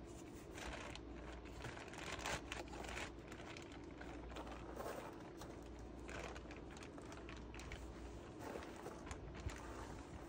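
Cardboard packing rustling, crinkling and scraping in irregular handling noises as pieces are pulled out of a wooden shipping crate.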